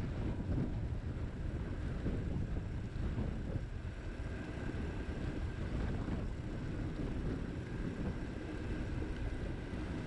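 Wind rushing over the microphone of a camera riding on a moving bicycle, with a steady low rumble from the ride along a paved path.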